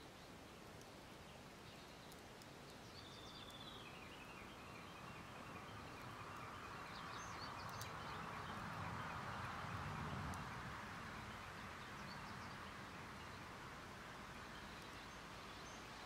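Faint outdoor ambience: small birds chirp in short runs, and a wood fire burning in a folding titanium stove gives a few sharp crackles. A broad rush of noise with a low rumble swells to its loudest about ten seconds in, then fades.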